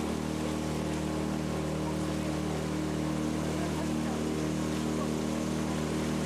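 A boat's engine running steadily at a constant speed, a low even drone with no change in pitch.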